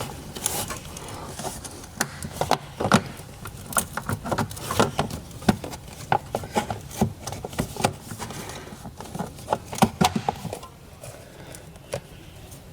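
Irregular clicks and knocks of a trim clip and cover being handled and worked back into place, thinning out near the end.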